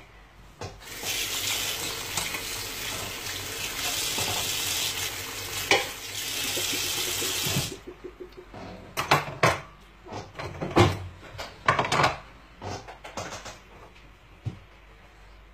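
Kitchen tap running into a sink for about seven seconds, then turned off. After that, dishes and cutlery knock and clink in the sink several times.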